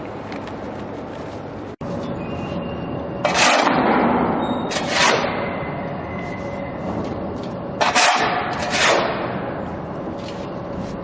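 Industrial melt-shop noise: a steady background with a faint hum, broken by four loud sudden bursts of noise that each die away within about half a second, coming in two pairs about a second or so apart. The sound cuts out for an instant just under two seconds in.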